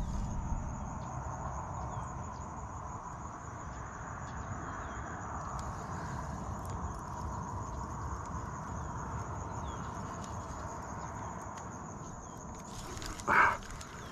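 Steady, high-pitched chirring of insects such as crickets, with one brief louder sound about a second before the end.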